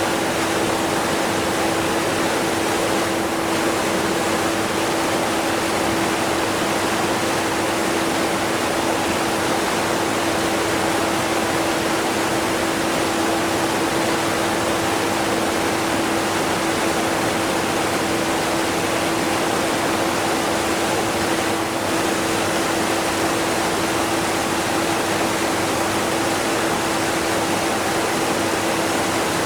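Steady rush of a strong waterfall with a vacuum cleaner's motor mixed in beneath it, its hum a faint steady tone under the water noise.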